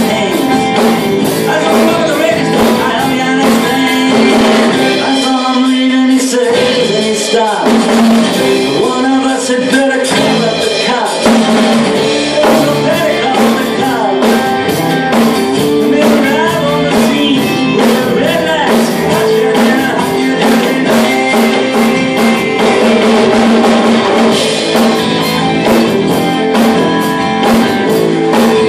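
A rock song with singing and guitar, with an acoustic drum kit played along to it: steady drum strokes and cymbal hits throughout.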